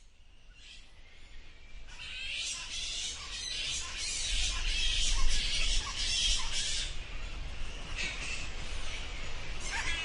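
Many bats squeaking and chattering together, a dense high-pitched twittering of overlapping calls that fades in over the first two seconds or so.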